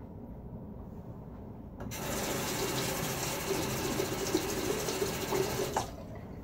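Bathroom tap running into the sink for about four seconds, turned on about two seconds in and shut off sharply, with a couple of light knocks while it runs.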